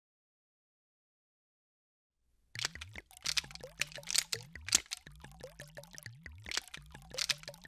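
Liquid dye squeezed from a plastic squeeze bottle into a toy water pistol's fill hole, squirting and gurgling in uneven spurts. The sound begins suddenly about two and a half seconds in, after complete silence.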